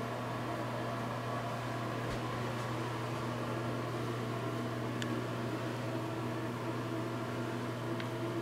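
Steady low mechanical hum, unchanging throughout, with a faint tick about five seconds in and another near the end.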